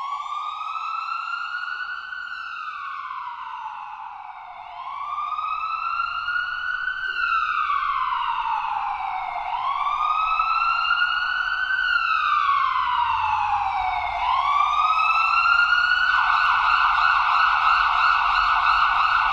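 Siren wailing: a pitched tone climbs for about two and a half seconds and then falls for about two and a half seconds, three times over. Near the end it stops falling and holds a steady high pitch.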